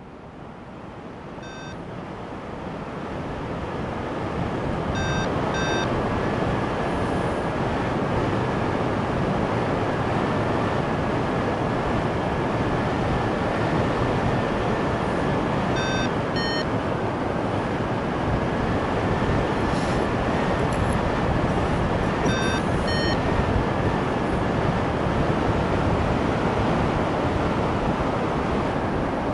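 Wind rushing over the microphone of a paraglider in flight, fading up over the first few seconds and then steady. A few short electronic beeps sound through it, mostly in quick pairs, and a faint, wavering thin tone runs through the middle.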